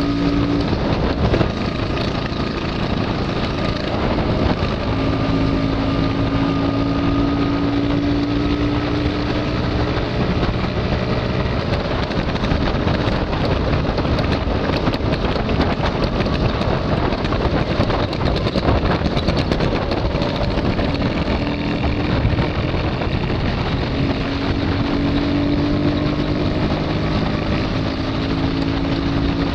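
Vintage two-stroke Lambretta and Vespa scooter engines running at road speed, the engine note climbing slowly in long pulls, with wind noise on the microphone that drowns the engines in the middle.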